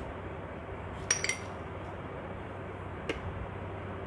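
A plate knocking against a plastic blender jar as spices are tipped in: a short pair of ringing clinks about a second in and a single click near three seconds, over a low steady room hum.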